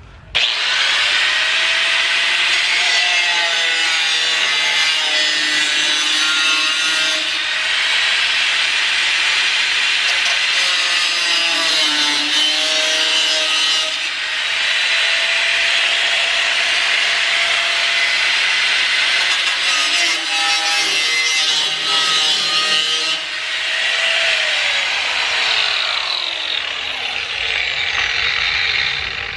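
Electric angle grinder cutting through a metal bracket, its whine dipping in pitch and recovering as the disc bites into the cut. Near the end the pitch falls as the grinder winds down.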